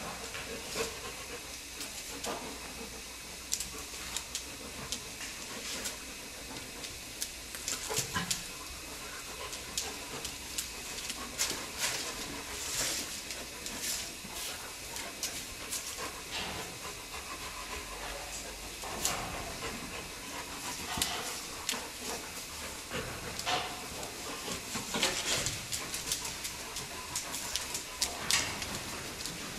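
Sun bears panting and sniffing at close quarters, with scuffs, scrapes and claw clicks on a concrete floor over a steady hiss.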